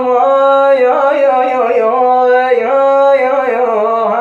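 A man singing an Iraqi-dialect song unaccompanied, drawing out a wordless vowel in long held notes that slide and waver from one to the next.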